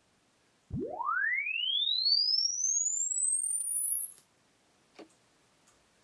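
Frequency-sweep test tone played through an Edifier R2000DB bookshelf speaker. A single pure tone starts under a second in and rises from a deep bass hum to a high whistle over about three and a half seconds, then stops abruptly.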